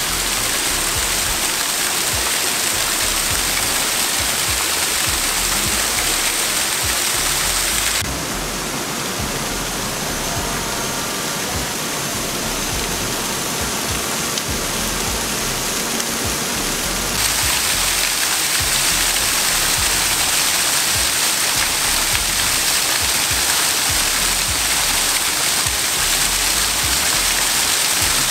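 Steady rushing of a small waterfall, a constant hiss of falling water. It turns softer and duller for about nine seconds in the middle, then comes back full.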